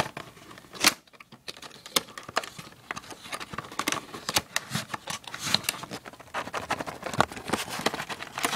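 Small cardboard retail box being opened by hand and its packaging handled: a dense run of irregular clicks, scrapes and crinkles.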